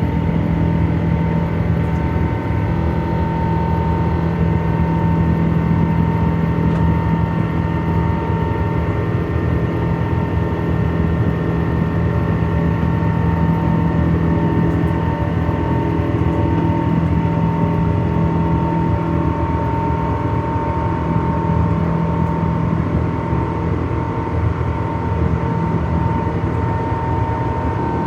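Boeing 777-200 jet engines and airflow heard from inside the passenger cabin: a steady drone with a constant low hum and a faint higher tone, unchanging in pitch.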